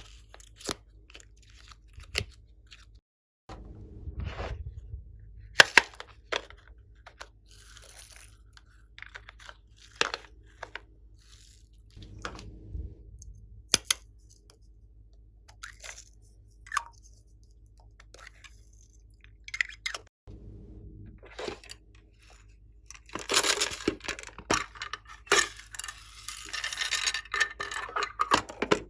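Glossy slime being squished, stretched and poked by hand: scattered sticky clicks and pops, with a denser run of crackling near the end.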